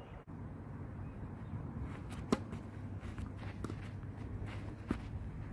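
Tennis ball struck with a racket: one sharp pop a little over two seconds in, then fainter hits later on, over shoes scuffing on the clay court.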